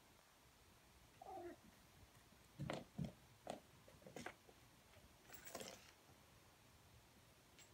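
A kitten's short falling meow, then a few thumps and light clicks as it pounces on and bats a toy mouse across a tile floor.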